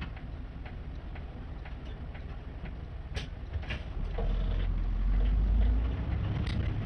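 City bus waiting at a light, its engine idling and a turn-signal indicator ticking about twice a second. About four seconds in, the engine grows much louder and rises in pitch as the bus pulls away.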